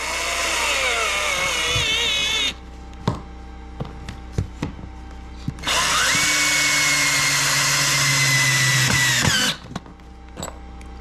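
Cordless drill driving wood screws into a wooden truss joint, in two runs. The first run ends about two and a half seconds in, its motor slowing under load. After a few light clicks and taps, the second run starts about halfway through and holds a steady whine for about four seconds before stopping.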